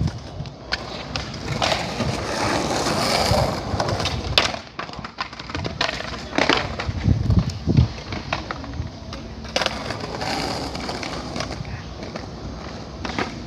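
Skateboard wheels rolling, with several sharp clacks of boards popping and landing as skaters attempt ollies.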